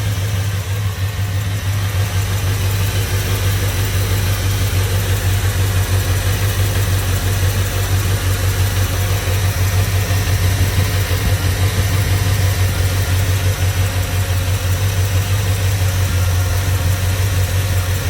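The V8 of a 2002 Chevrolet Silverado idling steadily with its valve cover off and the valve train exposed. The engine still has a misfire, which the owner suspects comes from dirty injectors.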